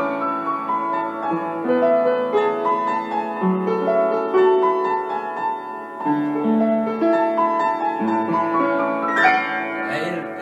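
Acoustic upright piano being played, a flowing melody over a bass line. Near the end a louder jangle of clashing notes breaks in as a cat lands on the keyboard.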